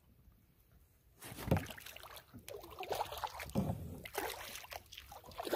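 Paddling a solo canoe on calm water: irregular swishes of the paddle and water, with a few light knocks on the hull, starting about a second in after a near-silent pause.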